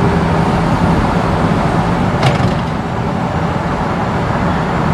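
Steady engine and tyre noise heard inside the cabin of a vehicle driving on a paved road, with a short sharp click about two seconds in.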